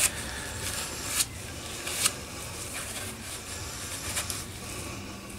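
A cloth rag rustling and rubbing as lapping compound is wiped off an engine valve and the cylinder head, with a few light clicks and taps.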